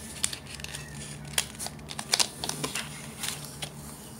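Handling noises: scattered sharp clicks and light rustling as a plastic lipstick tube is handled and put away and items are rummaged in a cardboard box.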